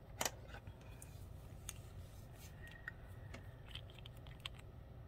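Faint scattered clicks and light taps of small gel polish bottles and their brush caps being handled and opened, with the sharpest click just after the start.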